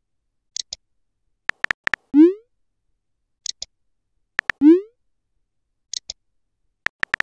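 Text-messaging app sound effects: quick clusters of keyboard tap clicks, each followed by a low pop that rises in pitch, with a short high double blip in between. The cycle repeats three times, about every two and a half seconds, as messages are typed and sent.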